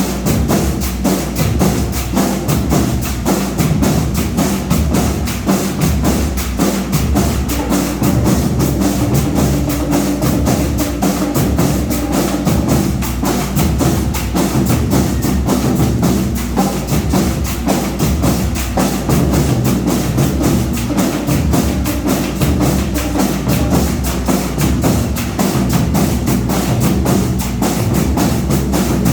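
Marching band playing, led by its drums: a steady, fast beat of snare and bass drums with sharp clicking strokes, and a held low note near the middle.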